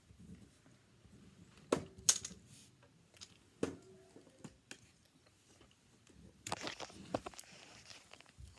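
Miniature plastic toy dishes and their storage container being handled: a few sharp clicks and short clinks, two of them ringing briefly, then a burst of rustling and rattling near the end.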